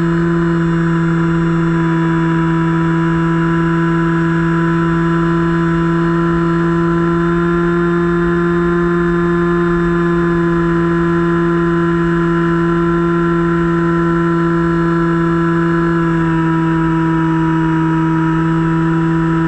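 Finwing Penguin RC plane's electric motor and propeller running at a steady cruise throttle: a loud, steady whine heard from the camera mounted on the airframe, with wind rushing past.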